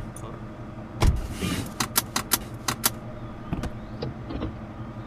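Car sound effects: a car door thumps shut about a second in, then a quick run of about six sharp clicks as seat belts are buckled, over a low engine hum.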